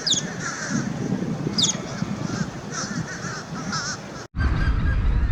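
Birds calling over and over in short wavy honking notes, with two sharp falling whistles, one at the start and one about a second and a half in. The calls break off a little past four seconds in, and a steady low rumble follows.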